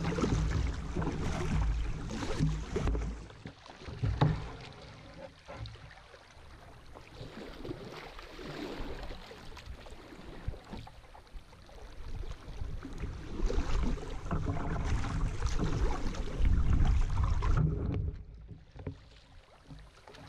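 Kayak paddling on a flowing river: paddle blades dipping and splashing with water rushing past the hull, mixed with wind noise on the microphone. The sound swells for a few seconds late on, then drops off sharply near the end.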